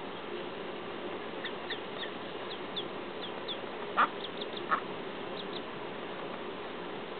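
Mallard duckling peeping repeatedly in short, high, falling notes, with two louder, lower calls about four seconds in, over a steady background hum.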